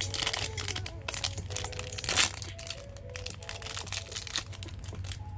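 Crinkly holographic foil wrapper being unwrapped and crumpled by hand, a dense crackle with one louder crunch about two seconds in.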